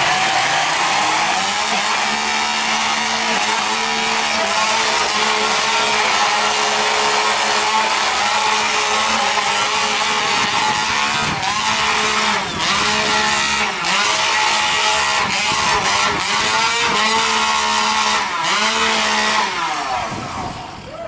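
Two-stroke chainsaw running flat out as it cuts through a log, its pitch dropping briefly several times as it bogs in the wood in the second half. It dies away near the end.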